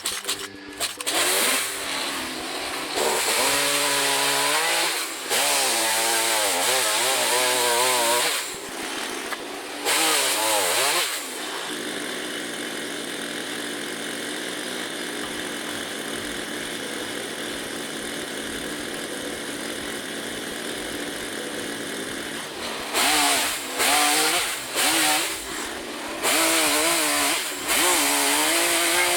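Two-stroke chainsaw revving up in repeated bursts, its pitch wavering as it cuts pallet wood, falling back to a steady idle for about ten seconds in the middle, then revving through several more short cuts near the end.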